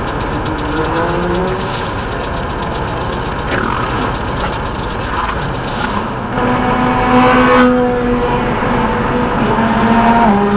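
A car's engine and tyre road noise heard from inside the cabin while driving at highway speed. The engine note rises briefly about a second in, then settles into a steady drone from about six seconds in that steps down slightly near the end.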